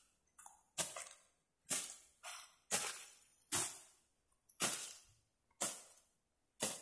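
Long-handled blade slashing into dense brush and ferns, about one sharp swishing stroke a second, each followed by a short rustle of cut vegetation.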